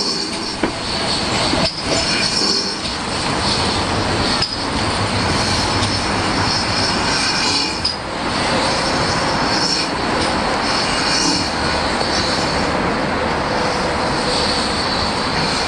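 GWR 4500 class 2-6-2 tank locomotive giving off a steady hiss of steam as it eases onto its coaches and stands, with a few clanks in the first few seconds.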